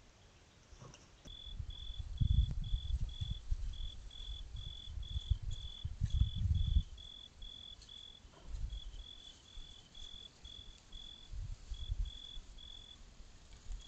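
A cricket chirping in a steady, even rhythm of high-pitched pulses, about two to three a second, over a warm summer night. Low rumbling thumps come in bursts and are loudest from about two to seven seconds in.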